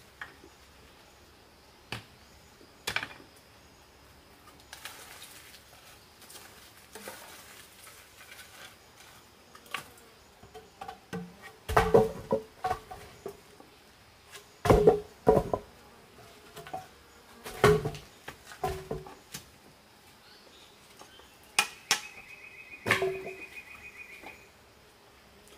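Irregular knocks and clatter from objects being handled, loudest in the second half, over a steady faint insect buzz. A short, rapid insect-like trill comes near the end.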